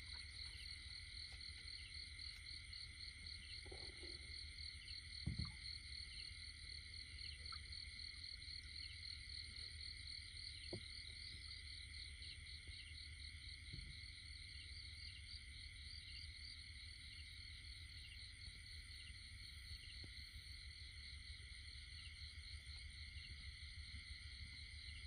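Steady chorus of night insects, a high trilling drone with a fast pulsing trill above it. A soft thump about five seconds in and a few faint knocks come from the brush.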